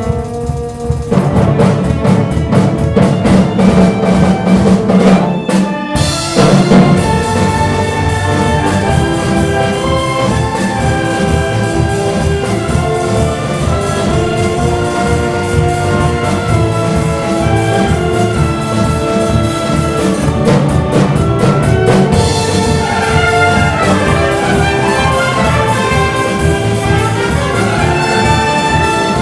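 School concert band of brass, woodwinds and percussion playing, with trumpets and trombones to the fore. The music drops out briefly about six seconds in, then the full band comes back in loudly.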